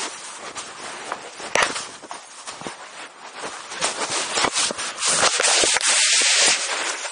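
Rustling and scraping right against the microphone, with many scattered crackling clicks, building to a loud steady hiss about five seconds in: handling noise from a covered or pocketed recording device.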